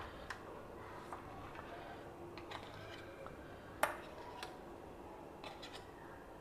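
Faint clicks and scrapes of a metal spoon against a stainless steel mini idli plate as steamed mini idlis are scooped out of their molds, with one sharper clink just before four seconds in.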